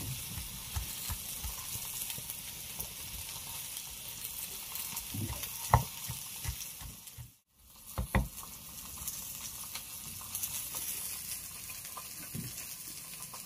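Cleaver chopping bird's-eye chillies on a wooden chopping block in irregular knocks, over a steady sizzling hiss from tilapia grilling on oil. The sound drops out for a moment about halfway through.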